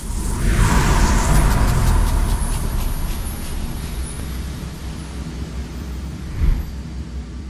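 A deep rumble with a rushing noise that swells in the first second or two and then fades slowly. A short thud comes about six and a half seconds in.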